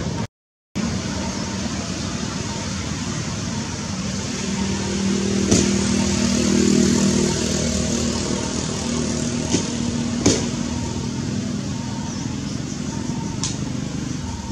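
Steady outdoor background noise with a vehicle engine swelling and fading about five to eight seconds in, and a few sharp clicks.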